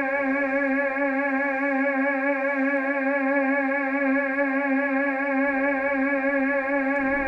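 A single sustained electronic tone held at one low-middle pitch with a steady, gentle vibrato, theremin-like and rich in overtones.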